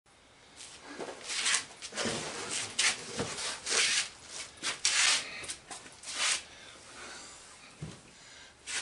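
Rustling and rubbing with a few dull thumps: a man moving about in denim clothes and settling into a seat behind a table.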